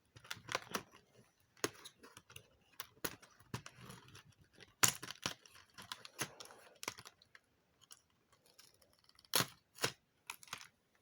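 Handling of a cardboard jewellery advent calendar as door number two is opened and its contents taken out: irregular clicks, crinkling and scraping of cardboard and small plastic packaging, with louder snaps about five seconds in and again near nine and a half seconds.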